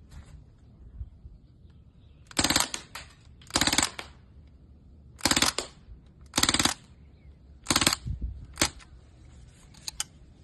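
Crosman DPMS SBR CO2 BB rifle firing five short full-auto bursts, each a rapid rattle of shots lasting under half a second, then a lone pop and a couple of faint clicks near the end.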